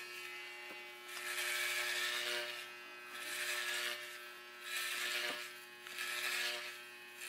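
Electric hair clippers buzzing steadily in a small room, swelling louder and fading back about four times as they cut hair.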